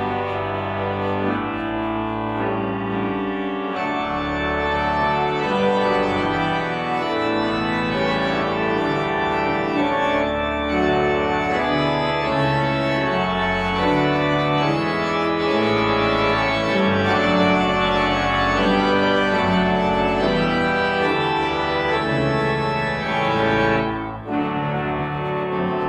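Organ postlude closing a church service: sustained chords that change every second or so, with a brief break near the end.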